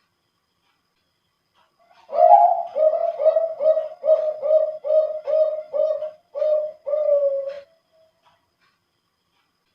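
Male Bangkok-type zebra dove (perkutut) singing one full song phrase: an opening coo, a quick run of about ten short coos at roughly two or three a second, and a longer drawn-out final note. The voice is deep and full, the quality prized in competition birds.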